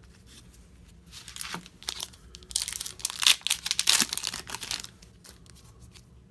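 Foil wrapper of a 1996 Upper Deck SP hockey card pack being torn open and crinkled by hand: a run of crackling that starts about a second in, is loudest in the middle, and dies away about five seconds in.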